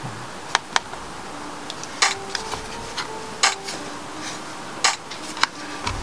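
A MacBook trackpad being clicked, about eight short sharp clicks spread unevenly over a few seconds, with faint tones shifting in pitch in the background.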